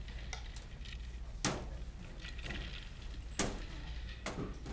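Three sharp taps or knocks, about a second and a half in, near three and a half seconds, and again a second later, with fainter ticks between, over a steady low room hum.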